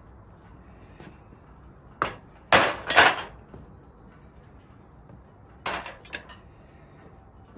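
Metal clanking of a foundry crucible and its steel lifting tongs being handled and set down: a sharp clank about two seconds in, two louder ringing clanks just after, then a few lighter clinks around six seconds.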